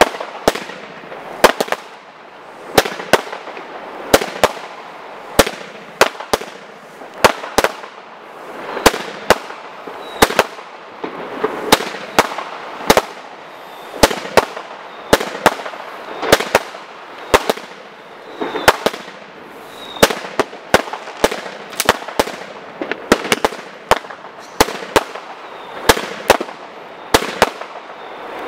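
Weco Walk of Fame 68-shot firework cake firing: sharp launch and burst bangs about two a second, with a steady hiss between the shots.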